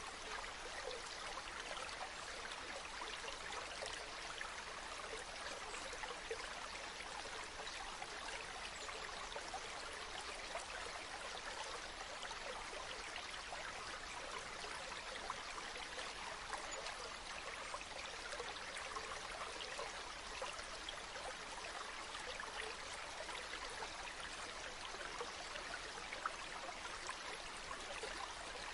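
Flowing water, a steady stream trickling and splashing without letup.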